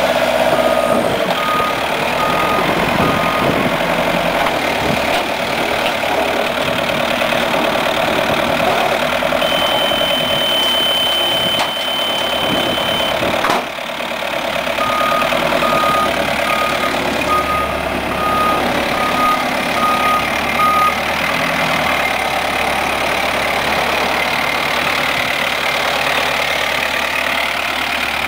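Engine running steadily, with a vehicle's reversing alarm beeping about twice a second, briefly near the start and again for several seconds in the middle; in between, a steady high tone sounds for a few seconds.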